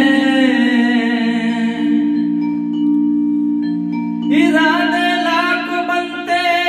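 Roland XPS-10 keyboard playing a bhajan interlude: held low chord notes under a bright, bell-like melody. The melody fades over the first two seconds and comes back in about four seconds in.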